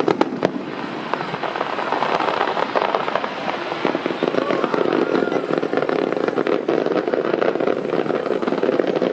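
Fireworks bursting overhead with a dense run of rapid crackling pops, building into a thick continuous crackle partway through.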